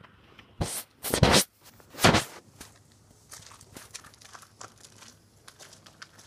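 Rustling and crinkling close to the microphone: three loud bursts in the first couple of seconds, then faint scattered crackles.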